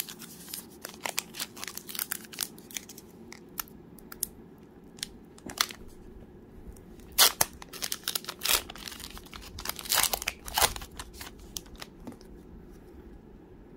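Trading-card pack wrapper being torn open and crinkled by hand: a run of sharp crackles, loudest about seven seconds in and again around ten seconds.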